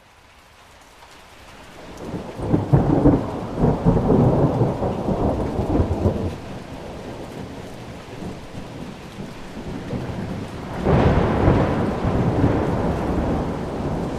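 Thunder rumbling over steady rain. The sound fades in, a long rumble builds about two and a half seconds in and lasts several seconds, and a second rumble breaks out near the end.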